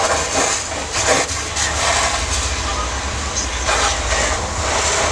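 Steady rushing rumble of a pickup truck on fire, with a few sharp pops and crackles.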